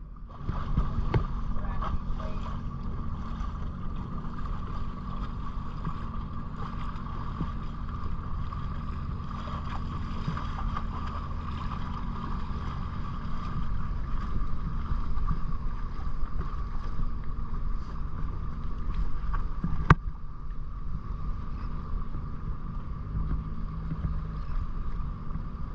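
Sea-Doo Switch pontoon boat's engine running steadily at low speed: a constant low rumble with a steady mid-pitched whine over it. One sharp click about 20 seconds in.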